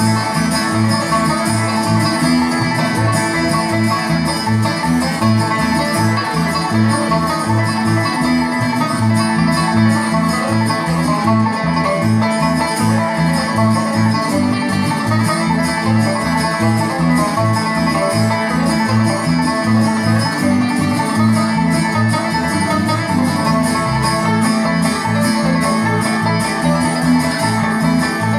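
Background music: a string-band tune with plucked strings over a steady, quick beat.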